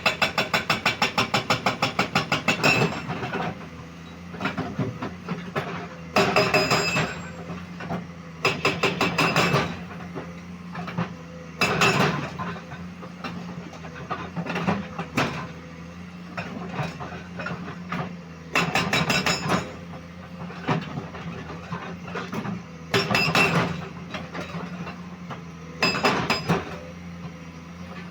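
Komatsu PC210 hydraulic excavator working, its diesel engine running steadily under repeated loud clanking and rattling. A rapid run of about eight knocks a second fills the first three seconds, then clattering bursts come every few seconds.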